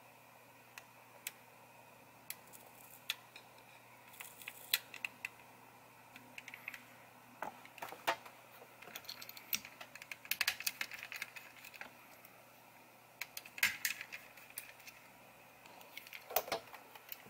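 Scattered light plastic clicks, taps and small rattles as the plastic shell of a Logitech Anywhere MX mouse is handled and worked on with small tools, with a few short runs of quick ticking.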